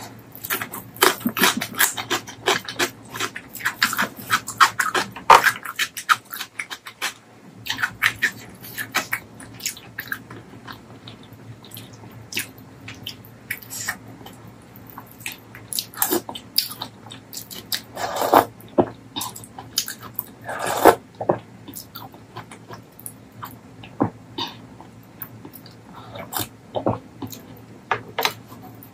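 Close-miked eating sounds of mutton curry and rice eaten by hand: wet chewing, lip smacks and mouth clicks. They come thick for the first several seconds and then more sparsely, with a couple of louder bursts later on.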